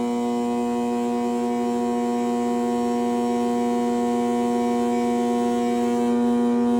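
Steady electrical hum with a ladder of pitched overtones from a 12 kW metal halide lamp and its magnetic ballast, running at nearly 7 kW near the limit of the setup.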